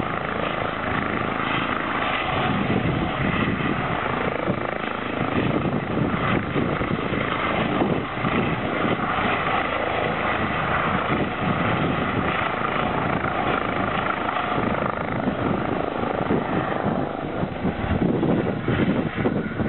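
Eurocopter EC135 helicopter running at full power as it lifts off from the snow and flies away, a steady turbine and rotor noise whose higher part thins out near the end as it moves off.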